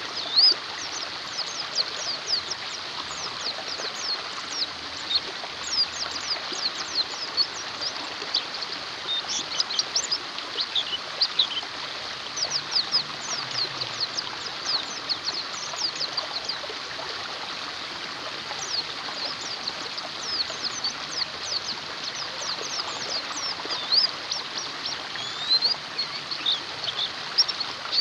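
Pleci (white-eye) birds chirping rapidly and continuously, many short high falling notes, over a steady sound of running water.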